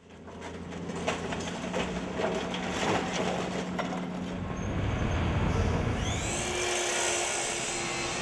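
Construction site noise: power tools and machinery running, with scattered knocks and a tool whine that rises about six seconds in, then holds steady.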